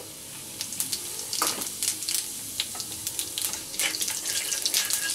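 Whole cumin seeds sizzling in hot oil in an iron kadai: a steady hiss with many short, sharp crackles as the seeds fry. They are stirred with a wooden spatula toward the end.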